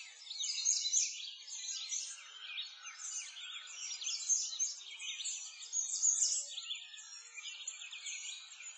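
A dense chorus of many small birds chirping and singing at once: quick, high chirps overlapping without a break.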